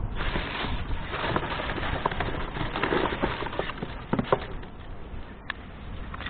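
Strong wind buffeting the microphone with a low rumble, easing after about four seconds. A few sharp crackles come from a wood fire burning in a small wood stove.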